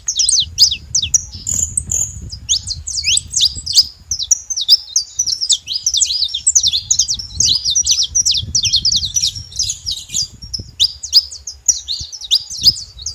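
Saffron finch (canário-da-terra) singing: a fast, continuous stream of high chirps, many of them quick downward-sweeping notes.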